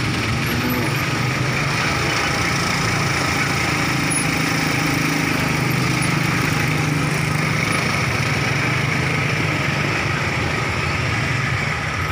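Vehicle engines running close by: a cattle truck's engine idling and moving off slowly, with motorcycle engines passing, a steady mechanical din.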